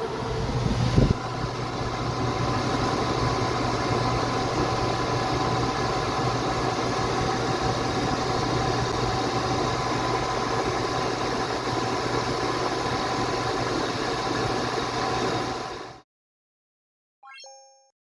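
Suburban NT-16S propane RV furnace running steadily after a hot-wired start: blower fan and burner giving a constant hum with a knock about a second in. The sound cuts off abruptly near the end, followed by a short electronic blip.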